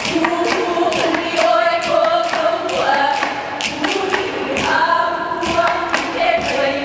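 Hawaiian hula chant sung by several voices on long held notes, over sharp percussion strikes keeping a beat of about two a second.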